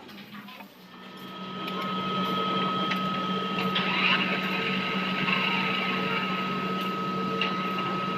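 Metal lathe spinning up and then running steadily with a motorcycle alloy wheel clamped in its chuck: a steady hum with a thin whine over it.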